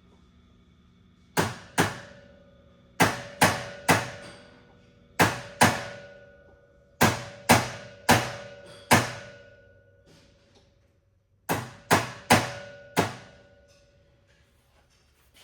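Hammer blows on a 3/32 pin punch, driving a pin out of a steel trap throwing arm. There are about fifteen sharp metallic strikes in bursts of two to four, each with a brief ring. The pin is partly driven out and still coming loose.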